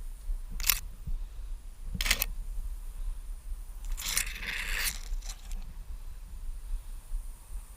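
Three or four brief scraping, rustling noises, the third one longer, over a steady low rumble.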